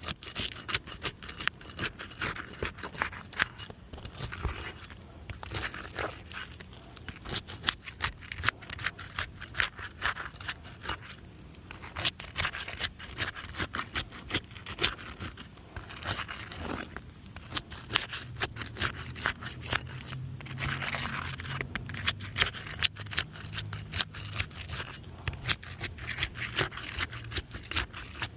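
Asphalt roof shingles being pried up and unsealed for a repairability check: irregular scraping, clicking and tearing as the sealant strips are broken and the tabs are lifted.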